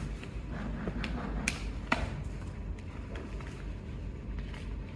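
Small plastic plant pots being handled and potting soil pressed down by hand: scattered light clicks and taps, two sharper clicks about one and a half to two seconds in, over a steady low background rumble.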